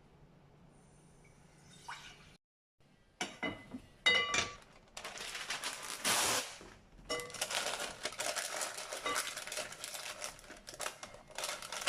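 Kitchen work with metal cookware: a few ringing clinks, then a burst of rushing water about five seconds in, followed by more clattering and splashing, as a pot is filled and a steamer plate handled.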